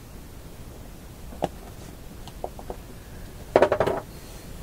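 Small hard objects being handled on a workbench: one sharp click about a second and a half in, a few light taps, then a brief burst of rapid clattering near the end, the loudest part.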